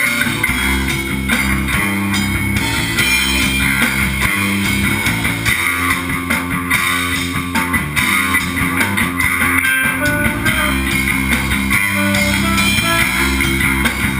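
Loud live rock jam: a drum kit with crashing cymbals and an electric bass guitar played through an amp, continuous and without singing.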